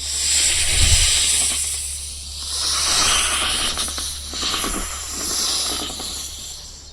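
Snake hissing: long drawn-out hisses that swell and fade about three times, over a low steady hum.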